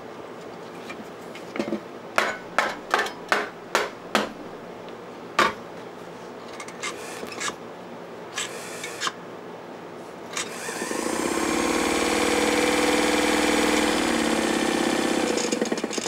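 Sharp clicks and knocks as the sewing machine's foot control housing is handled and closed. About ten seconds in, the Atlas sewing machine's motor runs up and holds a steady hum for about five seconds before running down, powered through the newly repaired foot control.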